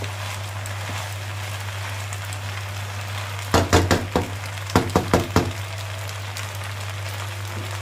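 Wooden spatula stirring macaroni in a non-stick pan, knocking against the pan several times in a quick cluster about halfway through, over a faint sizzle and a steady low hum.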